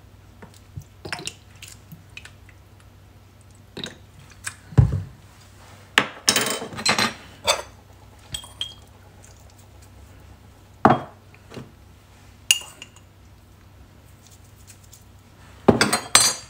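Measuring spoons and seasoning containers clinking and knocking against a glass mixing bowl and the countertop as lime juice, salt and pepper are measured in. The knocks come a second or more apart, with busier clattering about six seconds in and again near the end.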